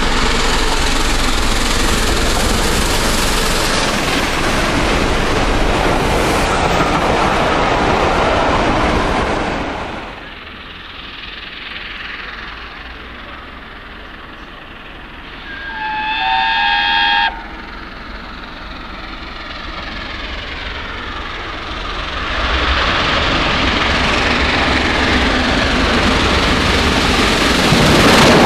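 LNER A1 Pacific steam locomotive Tornado working hard up a gradient with its train, its exhaust and running loud as it approaches. A single whistle blast more than halfway through is cut off short. Near the end the engine and its coaches pass close with clickety-clack from the wheels.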